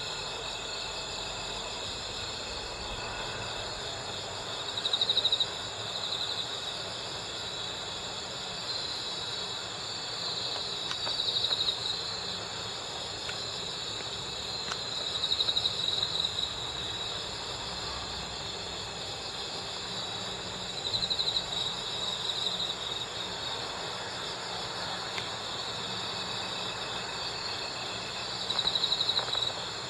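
Crickets (Gryllidae) chirping: a steady, high-pitched chorus, with a nearer cricket giving louder pulsed trills of about a second each, five times, every five or six seconds.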